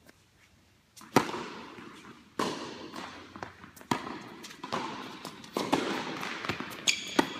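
Tennis balls struck by rackets: a sharp serve hit about a second in, then a rally of hits roughly every second and a half, each crack echoing in a large indoor hall. A short high squeak comes near the end.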